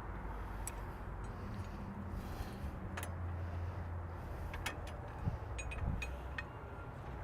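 Scattered metal clinks and taps, about six, from steel hitch parts (sway link and lynch pin) being handled and fitted on a tractor's 3-point hitch, over a steady low rumble.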